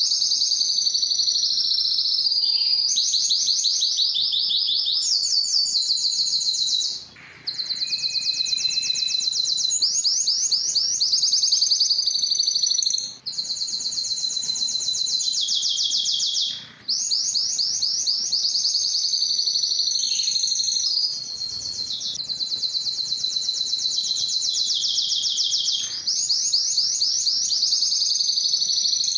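Spanish timbrado canary singing long runs of fast trills, with brief breaks about 7, 13 and 17 seconds in.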